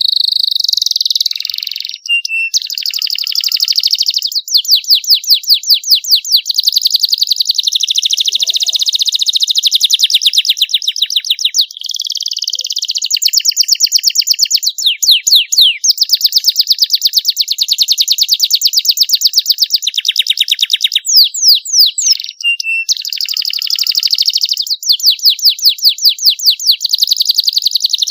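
Domestic canary singing a long, continuous song of fast rolling trills and rapidly repeated notes, with a few quick sweeping whistles about three-quarters of the way through.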